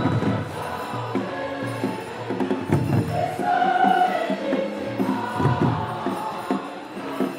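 A choir singing a hymn to a percussion beat.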